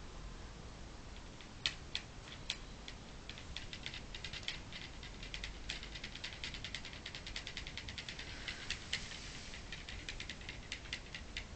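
A sleeping dog's claws clicking against a wall as it paddles its feet in a dream. A few single taps start about two seconds in, then the tapping runs on quick and irregular, several taps a second.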